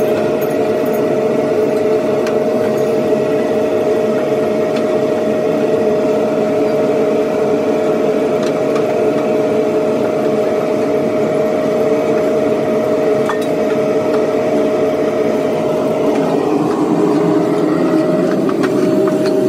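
Steady, loud drone of running workshop machinery with a constant whine, with a few faint knocks about halfway through and near the end.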